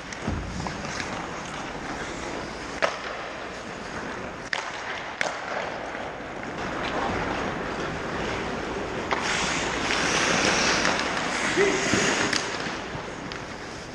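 Ice hockey skates scraping and carving on rink ice, with a few sharp clacks of sticks and puck in the first half. A louder, longer scraping hiss of skates close to the net comes in the last third.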